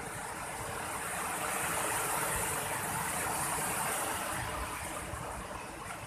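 Rushing water of a rocky river's rapids, a steady hiss that swells in the middle and eases a little near the end.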